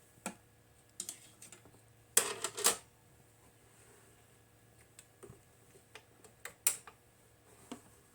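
Light clicks and knocks of equipment being handled on a workbench, irregularly spaced, with a quick cluster of louder clacks about two seconds in and scattered single clicks after.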